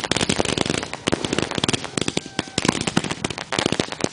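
Consumer fireworks finale firing: a dense, rapid barrage of bangs and crackles, many per second, thinning briefly about two seconds in before picking up again.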